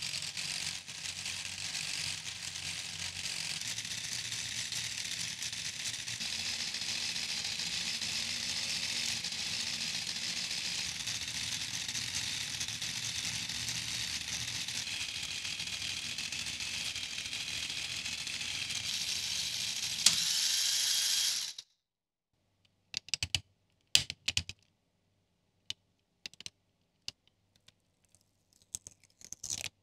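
Lego Technic treadmill running, its gears and plastic track links whirring and rattling steadily, the pitch shifting a couple of times as the gearbox levers are worked. It cuts off suddenly about two-thirds of the way through, and a few small clicks of Lego pieces being handled follow.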